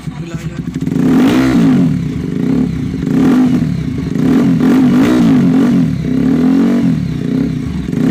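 TVS Apache RTR 160 4V's single-cylinder engine, fitted with an aftermarket performance exhaust, running with the throttle blipped again and again, its pitch rising and falling about once a second.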